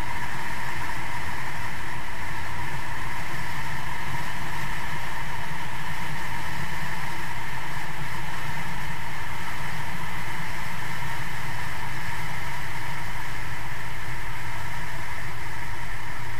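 Evinrude 150 two-stroke outboard motor running at high speed, a steady drone mixed with rushing noise, unchanging throughout.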